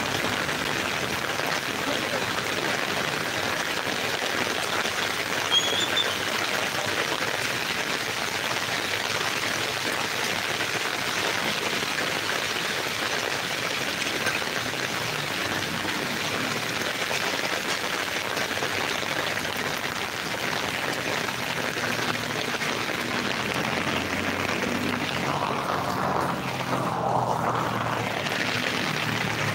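Heavy rain falling steadily on wet ground and a flooded road, an even hiss mixed with running runoff water.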